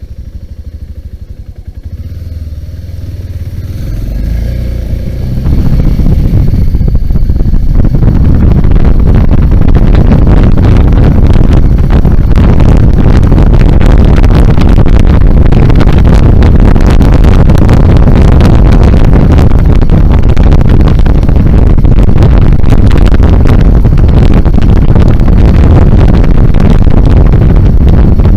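BMW G 650 GS single-cylinder motorcycle riding on a dirt trail, running quieter at first, then getting louder over the first six seconds or so as it speeds up, after which engine and wind noise on the microphone hold loud and steady.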